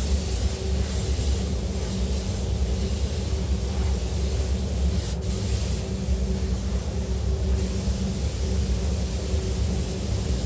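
Compressed-air spray guns hissing in on-and-off bursts as a glass coating is sprayed onto the car, over a steady low droning hum. A single sharp click about five seconds in.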